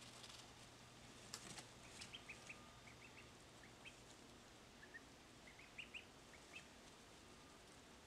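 Ducklings peeping faintly: a scattering of short, high peeps, some in quick runs of two or three, from about a second and a half in until past the middle. There is a faint tap just before the first peeps.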